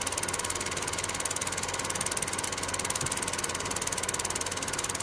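Film projector running, its film-advance mechanism making a fast, even clatter with a steady hum beneath.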